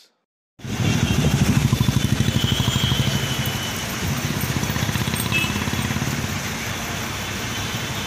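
Bus's diesel engine idling close by, a steady rapid throb that cuts in about half a second in and eases slightly after the first few seconds.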